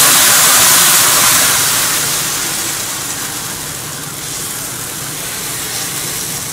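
Thin, watery oats-dosa batter sizzling on a hot dosa tawa as it is poured on. The hiss is loudest at first and eases over the first few seconds, settling to a steadier, quieter sizzle.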